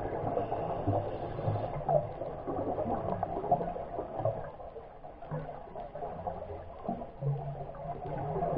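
Underwater reef ambience heard through the camera: a steady crackle of many small clicks, with short low hums that come and go.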